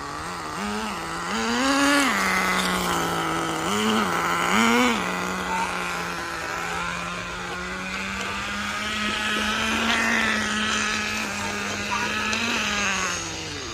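Nitro RC car's small glow-fuel engine running: the throttle is blipped, sending the pitch up and down several times, then held at a steady high rev before it drops away near the end.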